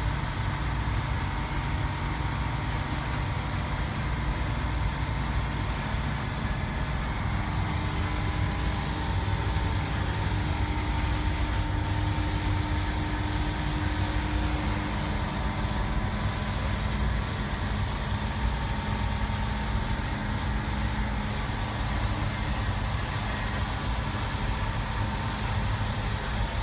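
Steady machine noise: a constant low rumble and hiss with a few faint steady hum tones, like a motor or engine running without pause.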